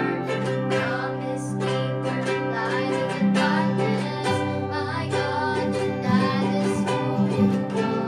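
Music led by a plucked string instrument, playing steadily.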